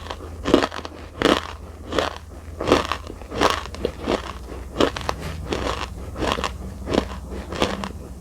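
Close-miked chewing of crunchy edible Nakumatt clay, a sharp crunch about every 0.7 seconds in a steady rhythm, getting a little softer toward the end.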